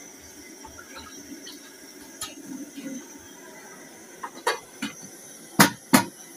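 Metal lids being set onto an aluminium cooking pot: a few light taps, then two sharp metal-on-metal clanks near the end, over a steady background hiss.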